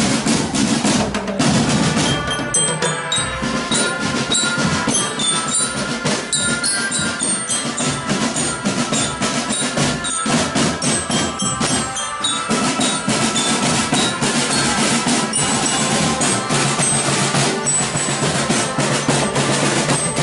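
Marching drum band playing: snare and bass drums keep up a dense, steady beat with rolls, while a glockenspiel (bell lyra) plays a melody in short ringing notes over it for most of the passage.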